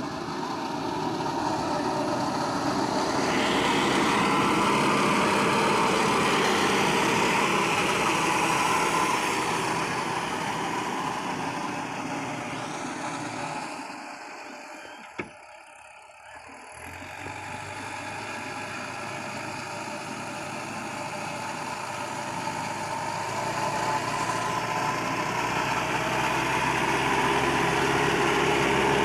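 Mahindra Earthmaster SX90 backhoe loader's diesel engine running steadily. It drops away for a couple of seconds about halfway, with one sharp click, then builds up again.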